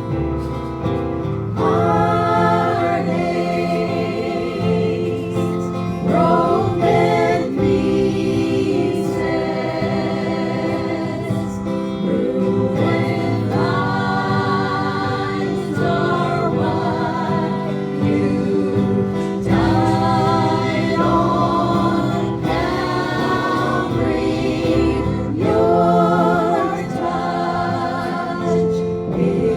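Gospel music: a group of voices singing with vibrato over steady instrumental backing.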